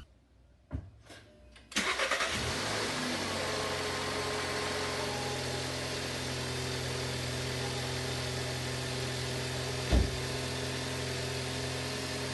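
Volkswagen Passat engine starting after its oil change: two faint clicks, then about two seconds in it cranks and catches with a brief flare and settles into a steady idle that circulates the fresh oil. A single low thump about ten seconds in.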